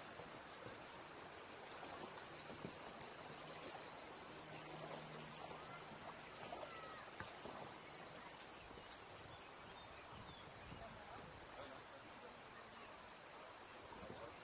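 Faint, steady high-pitched chirring chorus of cicadas from the riverside trees, over a soft wash of moving water.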